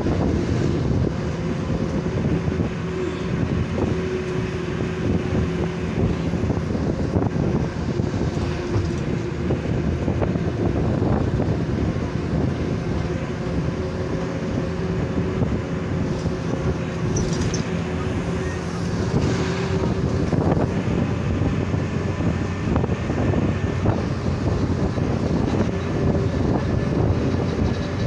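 Bus engine and road noise heard from inside the passenger cabin while driving, a steady drone with a few light knocks, and wind coming in through the open side window.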